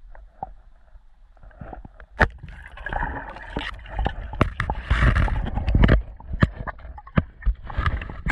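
Underwater: a sharp click about two seconds in as the spear is shot, then churning, gurgling water and a run of knocks and clicks as the speared fish struggles and the diver scrambles after it.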